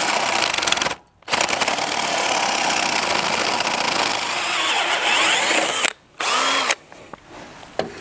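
Electric drill boring into a wooden post with a 1¼-inch spade bit: the drill runs for about a second, stops briefly, runs steadily for about four and a half seconds, stops, then gives one short burst before falling quiet.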